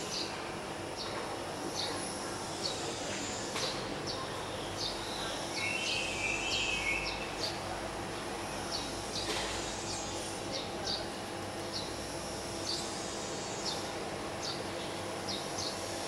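A small bird chirping repeatedly, short high chirps about twice a second, over steady outdoor background noise with a faint hum. A brief warbling call comes in about six seconds in.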